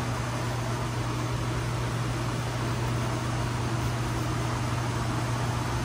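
Steady low machine hum over an even hiss, with no distinct knocks or clicks.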